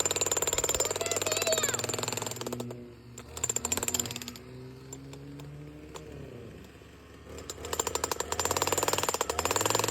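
52cc petrol demolition breaker hammering rapidly, stopping after about two and a half seconds, giving a short burst a second later, then running with its engine pitch rising and falling before hammering again from about seven and a half seconds.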